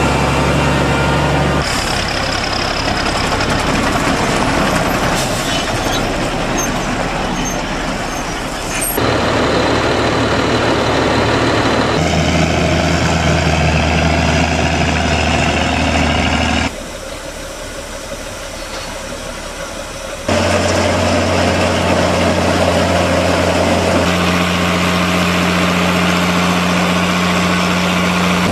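Heavy farm tractor diesel engines working on a maize silage clamp, a Valtra tractor packing the chopped maize and a Fendt Favorit 916 pulling a loaded forage wagon onto it. The steady engine note jumps to a new pitch and level several times, with a quieter stretch about two-thirds through.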